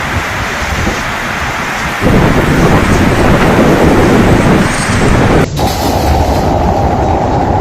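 Storm wind and rain, with deep wind rumble on the microphone. The sound changes abruptly twice: it turns louder and deeper about two seconds in, then cuts sharply to a thinner steady noise a little past five seconds.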